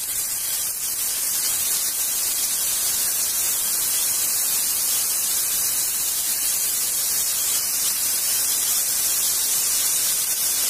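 Steady, loud sizzling hiss of marinated fish pieces frying in hot oil on a grill pan.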